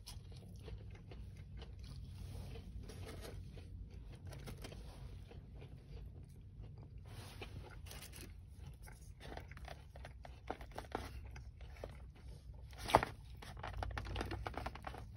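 Close-up chewing and crunching of fried food, with small clicks and scrapes of a plastic fork in a foam takeout box. One sharp, louder click comes near the end.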